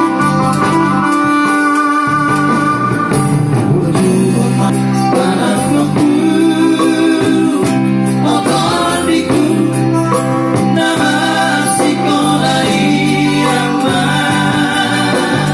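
Live amplified music: men singing a Batak song into microphones, backed by an electronic keyboard.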